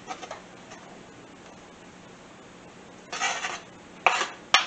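Knife scraping chopped scallions off a cutting board into a skillet of cooking sausage: a scrape about three seconds in, a second shorter scrape about a second later, then a sharp click near the end.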